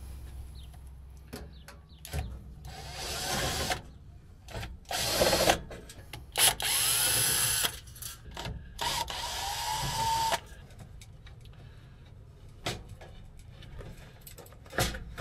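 Cordless drill/driver driving screws in four short runs, its motor whine rising as it spins up in some of them. A sharp knock near the end.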